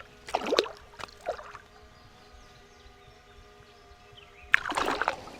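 Water splashing in a few short bursts, the biggest splash about four and a half seconds in, over a faint steady hum.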